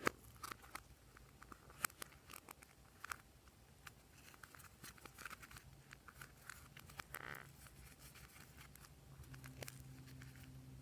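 Faint hands-on slime mixing: scattered sticky clicks, pops and small crackles, with a brief crinkle about seven seconds in, over a faint low hum.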